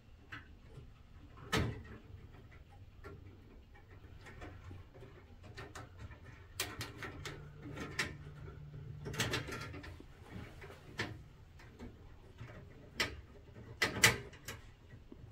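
Small handling noises of electrical wires being twisted together by hand and a plastic twist-on wire nut being screwed onto them: scattered soft rustles and clicks, with a few sharper clicks about a second and a half in, around the middle, and near the end.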